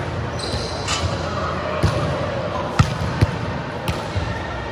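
A volleyball thudding against the hard floor of a sports hall about five times at uneven intervals, each thud ringing in the hall's echo, over faint background voices. A brief high squeak comes about half a second in.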